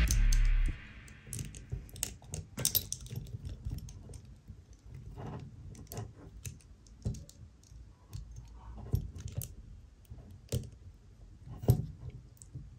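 Light clicks and taps of a Saint Cloth Myth EX action figure's parts being handled and fitted together by hand, as a hair piece is pressed onto the figure. A music track cuts off in the first second.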